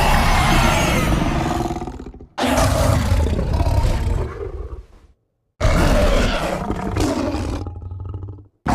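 Creature roar sound effect meant as the Jersey Devil: long, harsh, wavering roars cut off abruptly by silent gaps, three of them, with a fourth starting at the end.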